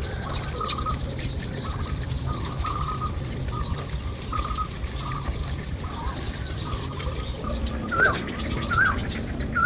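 Birds calling: a run of short repeated notes, then a few sharper upward-sweeping calls near the end, over a steady low rumble.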